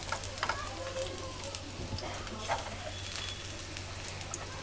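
Arbi leaf roll slices (patode) sizzling steadily in shallow oil in a frying pan, with a few short clicks of a metal spatula against the pan as they are turned over.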